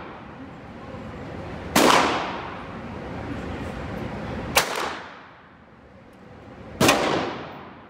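Three .22 LR gunshots, about two, four and a half and seven seconds in, echoing in an indoor range. The .22 is fired from a 12-gauge shotgun through a short 3-inch sub-caliber adapter, and it barks a little louder for having less barrel.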